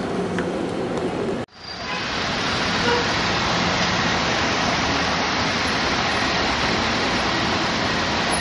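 Low room hum that cuts off suddenly about a second and a half in, followed by steady, fairly loud city street traffic noise as cars pass close by.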